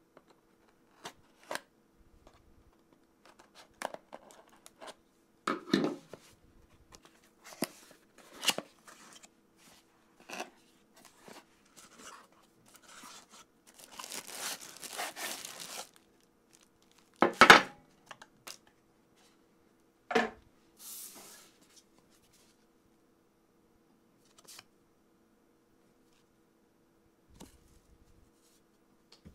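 Close-up handling of a phone stand's retail packaging: scattered clicks and taps, a stretch of rustling about halfway through, and two sharper knocks soon after.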